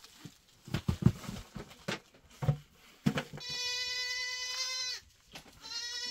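Goat bleating: one long, steady call about three seconds in and a shorter one near the end, after a few dull knocks.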